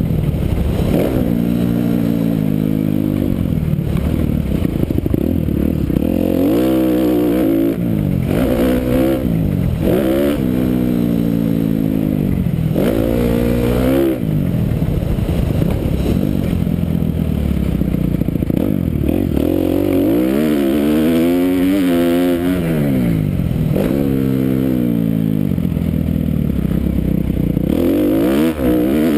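Kawasaki KX250F single-cylinder four-stroke dirt bike engine revving up and down over and over, rising on the throttle and dropping off as the rider shifts and rolls off around a motocross track.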